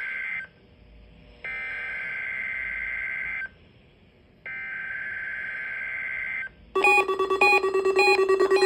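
Emergency Alert System SAME header: bursts of warbling two-pitch data tones about two seconds long, with one-second gaps between them, the first cut off at the start. About seven seconds in, a louder, pulsing electronic alert tone of several pitches begins.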